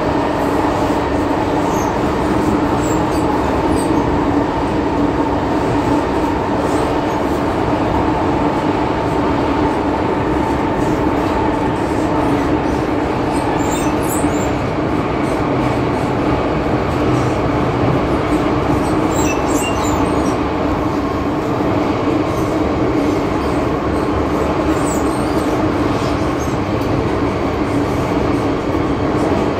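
MTR Tsuen Wan Line M-Train running at a steady speed, heard from inside the passenger car: a continuous rumble of wheels and running gear with a steady hum underneath.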